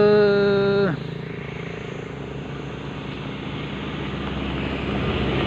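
A loud long call from a voice, gliding up and held, breaks off about a second in. Then the engine of an approaching motorcycle grows steadily louder.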